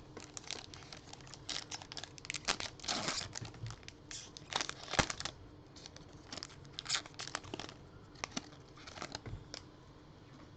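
A trading-card pack wrapper being crinkled and torn open by hand: irregular crackling and rustling, busiest in the first half.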